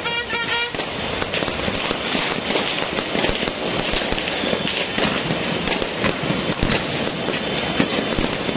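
Many fireworks going off at once across a city: a continuous dense crackling with frequent sharp bangs. In the first second, a pitched beeping that repeats about three times a second stops.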